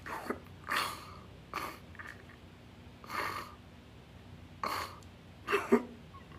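A man crying: a series of short sniffs and sobbing breaths about a second apart, with a brief voiced sob near the end.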